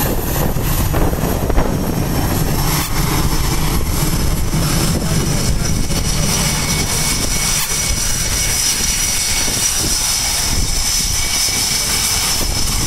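F/A-18 Hornet's twin jet engines running as the fighter taxis and turns on the carrier flight deck: a loud, steady rumble with a high whine over it that rises slightly near the end.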